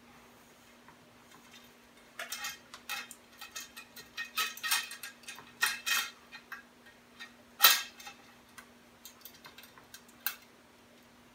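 Bicycle spokes ticking and rattling against one another and the rim as a spoke is laced and fitted into the rim by hand: scattered light clicks and short metallic clatters, with one sharper click about two-thirds of the way through.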